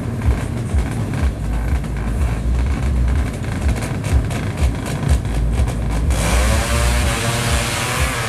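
A low, uneven rumble, then about six seconds in a drag-racing motorcycle's engine comes in suddenly and loud, revving high with its pitch wavering and climbing.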